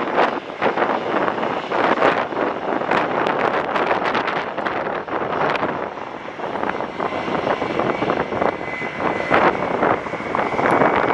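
Jet engines of an Airbus A319 running at taxi power as the airliner rolls past, mixed with wind buffeting the microphone. A thin, steady high whine joins about halfway through.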